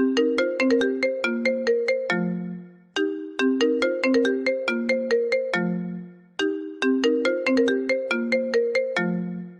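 Phone ringtone: a short melody of quick, bright struck notes looping about every three and a half seconds, three times. Each loop ends on a longer low note that fades away.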